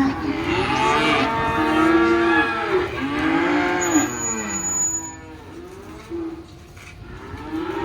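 Many calves bawling ("crying") at once in livestock pens, several drawn-out calls overlapping, thinning out and quieter after about five seconds.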